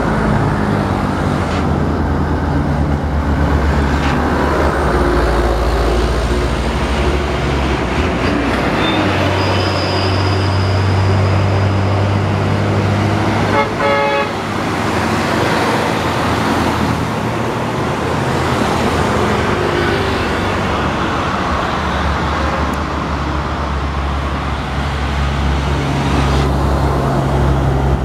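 Diesel engines of heavy trucks running as they pass one after another, with a short horn toot about halfway through.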